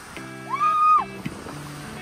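Background music: short chords of steady notes, with a loud high note that slides up, holds for about half a second and slides back down about half a second in.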